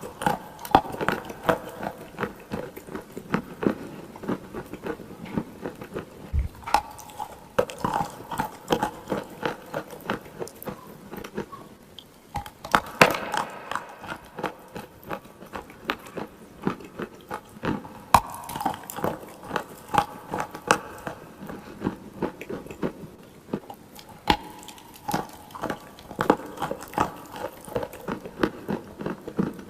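Clay being bitten and chewed close to the microphone: irregular sharp crunches and crackles, several a second, throughout.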